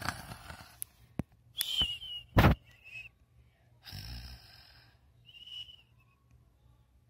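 Handling noise: a few sharp knocks as plastic toy figures and the camera are moved about on a wooden table, the loudest about two and a half seconds in. Short high whistling sounds come in between.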